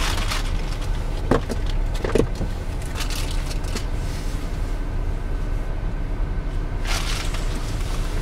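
Steady low wind rumble on the camera microphone, with a few brief knocks and rustles from the camera being handled.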